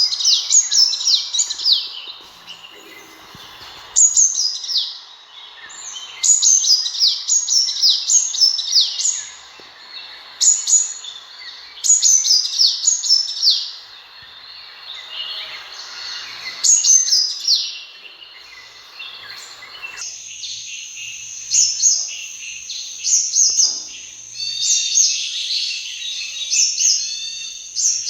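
Sunbird song: short bursts of rapid, high, down-slurred chirps repeated every second or two. About two-thirds of the way through, the sound changes to a thinner, steadier high twittering with trills.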